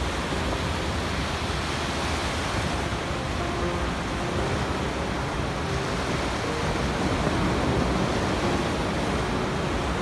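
Sea waves breaking on a sandy beach: a steady rush of surf, a little louder after about seven seconds.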